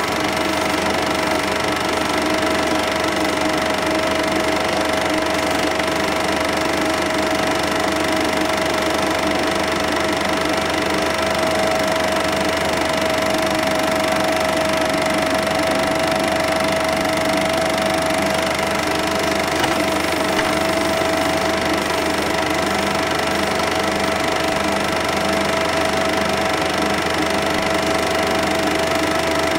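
Cine film projector running: a steady mechanical whirr with a constant high hum that does not change.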